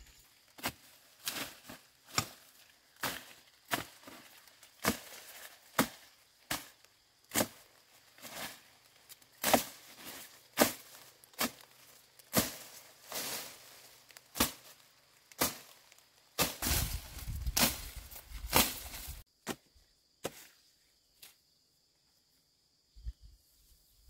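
Crisp snaps of plant stems being picked off by hand, with rustling leaves, about one snap every three-quarters of a second. After about sixteen seconds the snaps give way to a few seconds of low rumbling noise, then only a few scattered snaps.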